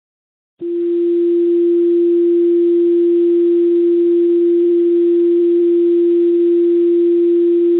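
A single long, steady alert tone of one pitch from a fire dispatch page, heard over a P25 digital trunked radio scanner with a faint hiss. It starts just under a second in and holds unbroken. This is the tone that alerts the fire department before the dispatcher calls out the fire alarm.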